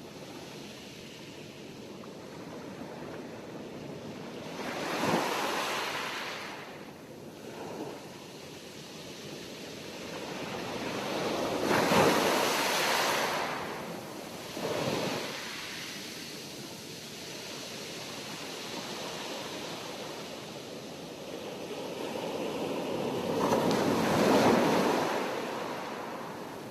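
Sea waves breaking and washing on the shore, a steady surf hiss that swells with a loud wave break about five seconds in, another around twelve seconds and a third near the end, with smaller ones between.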